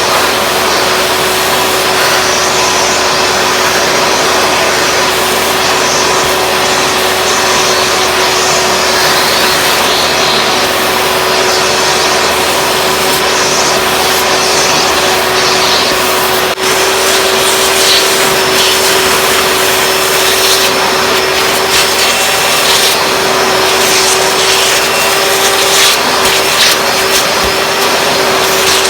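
1996 Hoover Preferred Elite upright vacuum's 7.2-amp direct-air motor running steadily with a constant whine over a broad rushing hiss, cleaning up debris. The sound dips briefly once about halfway through.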